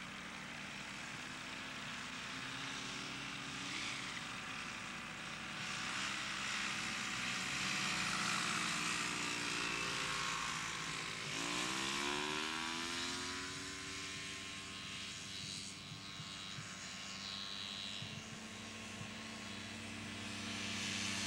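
Fisher FP-505 Skeeter ultralight's small engine and propeller droning steadily. About eleven seconds in, the engine note sweeps sharply upward and then holds, as the engine is throttled up.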